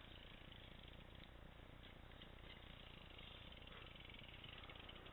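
Near silence: faint steady background noise with no distinct events.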